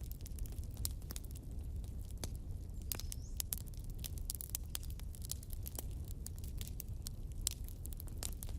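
Wood fire crackling in a fireplace: frequent irregular sharp snaps and pops from the burning logs over a steady low rumble of the flames.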